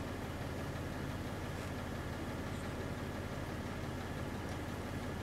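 A steady low rumble with a faint even hum, unchanging throughout.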